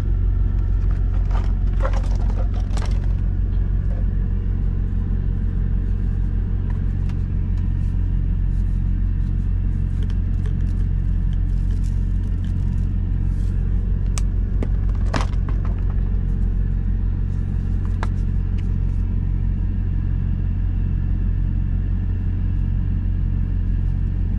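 Semi truck's diesel engine idling steadily, a deep even rumble heard from inside the cab. A few light clicks and taps stand out above it, the loudest about fifteen seconds in.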